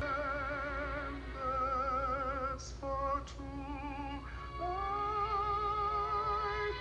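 A voice singing long held notes with a wide vibrato, moving to a new pitch every second or so.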